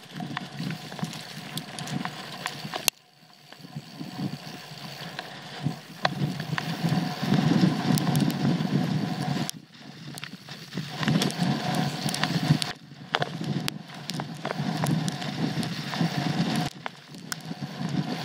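Trek Full Stache 8 mountain bike riding a rough dirt trail: tyres rumbling over the ground, with frequent rattling clicks and knocks from the bike. The noise drops briefly about three seconds in and again near ten seconds.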